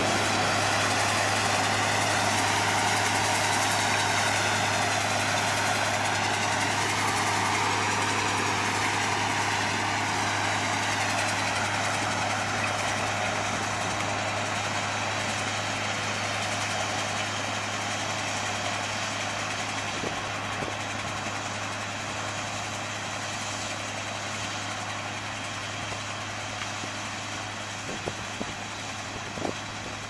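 Massey Ferguson 510 combine running as it harvests soybeans: a steady machine drone that slowly grows quieter, with a few faint clicks near the end.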